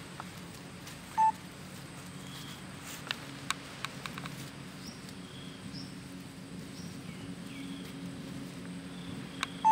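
Two short electronic beeps, one about a second in and one at the end, stand out over a steady low hum and faint high chirps, with a few soft clicks in between.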